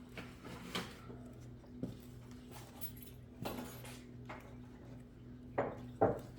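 Scattered metallic clinks and knocks of hand tools and parts being handled, about five sharp ones with the loudest near the end, over a steady low hum.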